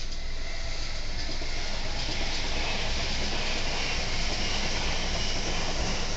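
A train running along the rails past a level crossing: a steady rushing and rumbling that grows louder about two seconds in.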